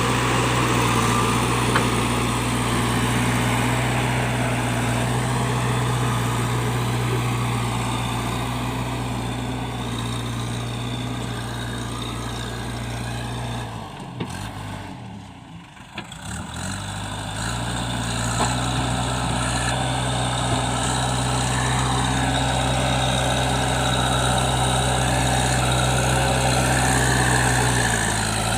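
JCB 3DX backhoe loader's diesel engine running at a steady speed. About halfway through the sound falls away sharply for a couple of seconds, its pitch dropping, then comes back up to the same steady note.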